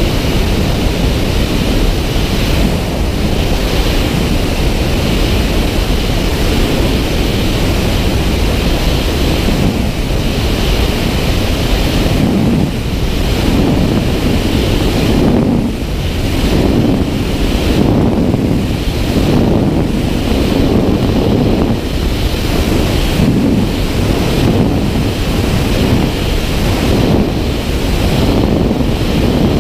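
Loud, steady rush of airflow over a GoPro camera's microphone during wingsuit flight, with a low buffeting that swells and fades unevenly, every second or so from about halfway through.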